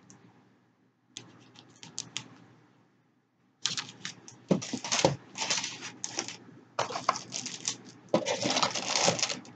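Clear plastic packaging sleeve crinkling and rustling as it is handled: a short burst about a second in, then nearly continuous crinkling from about three and a half seconds on.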